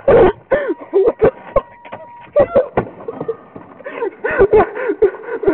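A man making short wordless vocal noises one after another, each rising and falling in pitch, some loud and abrupt.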